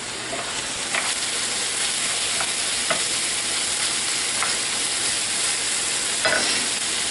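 Ground beef, onions, carrots and celery sizzling in a frying pan as a wooden spoon stirs them, with a steady frying hiss and a few light taps of the spoon against the pan.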